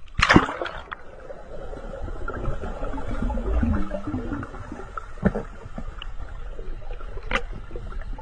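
A loud splash as a black Labrador dives into the sea, followed by the muffled, rumbling gurgle of water heard underwater as the dog swims down, with a few sharp knocks.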